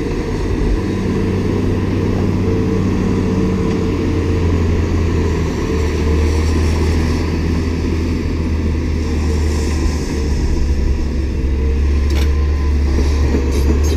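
Diesel engine of a Cat 330F tracked excavator running steadily under working load as it digs and swings its bucket, a constant low drone.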